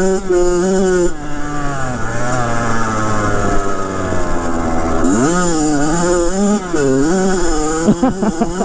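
2007 Kawasaki KX100's 99cc two-stroke single-cylinder engine under way. It holds high revs briefly, then eases off with its pitch falling for a few seconds. From about five seconds in it revs up and down quickly and repeatedly as the throttle is worked.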